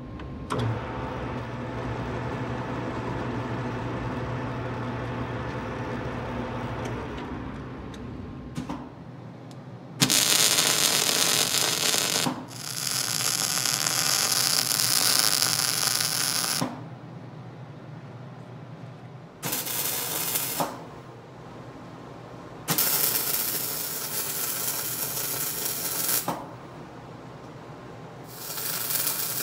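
A metal lathe running with a steady motor hum for the first several seconds. Then a welding arc on steel strikes five times, each weld a loud hiss lasting one to four seconds, with short gaps between.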